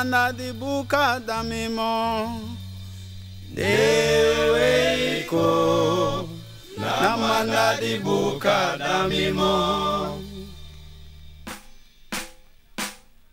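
Music: voices singing a chant-like melody over steady bass notes, thinning out near the end to a few sharp percussive strikes.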